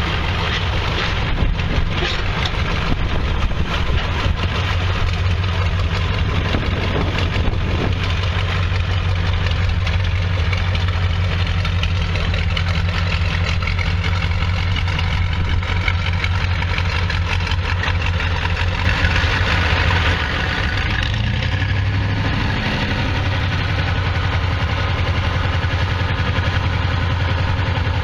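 Engine of a re-powered John Deere tractor running steadily at low speed as the tractor is driven. Its note changes about twenty seconds in.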